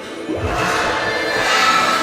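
A children's channel logo intro jingle put through audio effect presets, heard as altered, pitch-shifted music with a noisy swoosh and low thump about half a second in.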